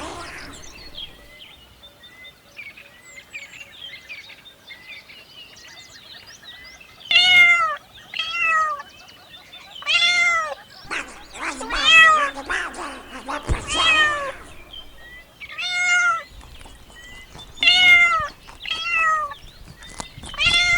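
Cat meowing over and over: loud, high meows with a rise-and-fall pitch, one every second or two, starting about seven seconds in. Before that, a quieter stretch with faint short chirps.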